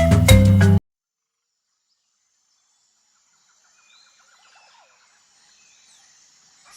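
Marimba music that cuts off abruptly under a second in, then near silence. About four seconds in, faint outdoor ambience starts, with quick repeated chirps and a few short whistled calls from birds or insects.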